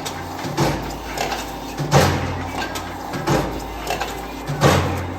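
Hitachi PF100F super surfacer running with a steady low hum, while four sharp knocks come about one and a half seconds apart as pieces of wood are fed through it.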